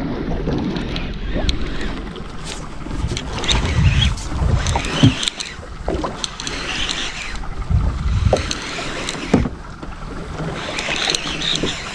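Wind buffeting the microphone and water lapping against the hull of a small open boat at sea, with a few irregular low thuds and small knocks.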